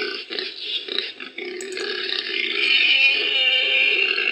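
Babirusa grunting: a rough, continuous pig-like sound with a short dip about a second in.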